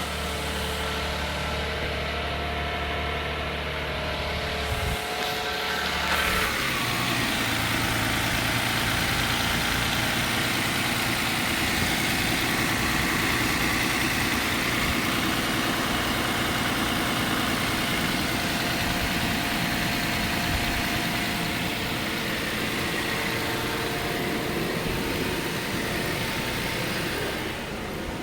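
A vehicle engine running steadily. About five seconds in the low hum gives way to a more even rushing noise.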